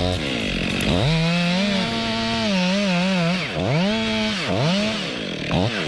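Chainsaw engine running at high revs, its pitch dropping and climbing back up several times, with three quick dips in the second half, as the throttle is eased and opened again.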